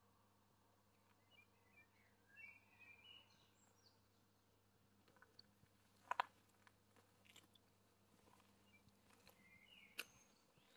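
Faint outdoor evening ambience with a few short bird chirps around two seconds in and again near the end, and two sharp clicks, the louder one about six seconds in.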